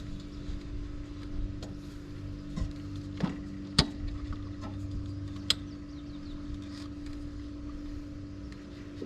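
A few sharp plastic clicks and knocks, the loudest about four seconds in and another past five seconds, from a tractor's air cleaner housing being unlatched and opened, over a steady low hum.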